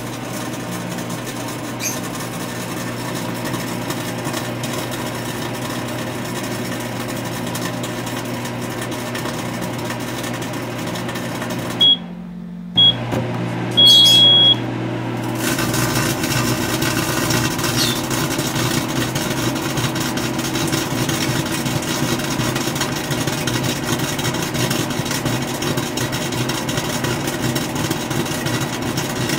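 Microwave oven running with a steady hum and buzz while broken 150-watt flood lamp bulbs glow with plasma inside. About twelve seconds in the hum stops with a short high beep, a longer beep follows a couple of seconds later, and the oven starts again with the hum and buzz somewhat louder.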